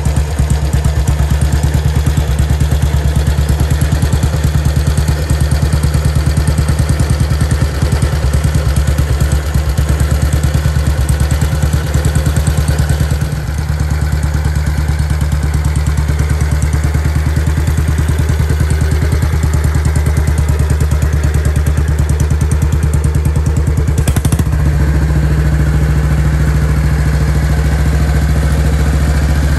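1957 Matchless G3LS 350's single-cylinder four-stroke engine running steadily at idle, with no revving. The sound shifts slightly about thirteen seconds in and again near twenty-five seconds.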